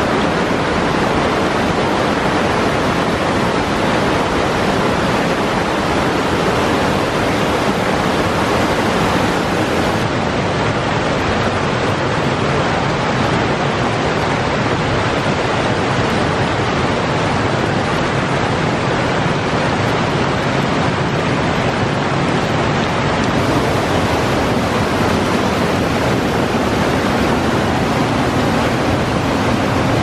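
Mountain creek waterfall cascading over boulders: a loud, steady rush of falling water.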